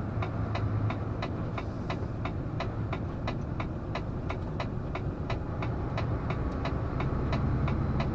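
Truck engine running with road noise, heard inside the cab with the windows open, under a regular ticking about three times a second.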